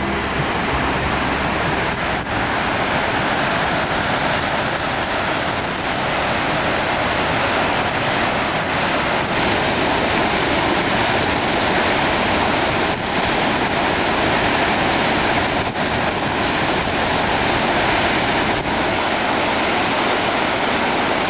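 Steady loud rush of the Niagara River's whitewater, from the falls' crest and the rapids above it, heard close up, with a few brief dips where the shots change.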